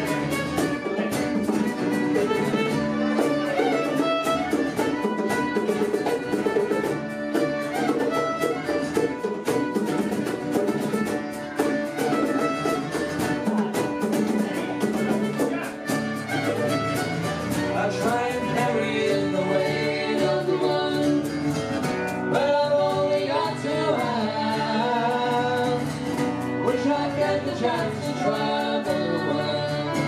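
Country-style band music: acoustic guitar and fiddle with singing.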